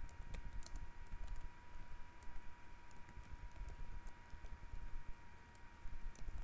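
Typing on a computer keyboard: irregular key clicks as a command is entered, over a faint steady tone.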